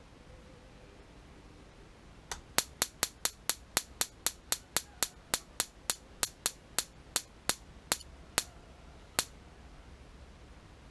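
Homemade spark igniter, a cheap 6-volt high-voltage generator module, snapping out separate sharp sparks about four times a second, starting about two seconds in, then slowing and stopping after some seven seconds. It should hold a constant arc, so the broken-up sparking is a sign of weak output, which the owner puts down to low batteries or a failing generator.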